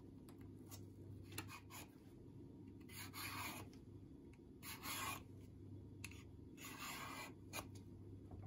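Hand vegetable peeler scraping strips of skin off an eggplant: three rasping strokes about two seconds apart, with a few light clicks in between.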